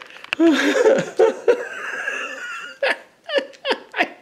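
A man laughing hard, a long wavering laugh that breaks into a string of short separate bursts in the second half.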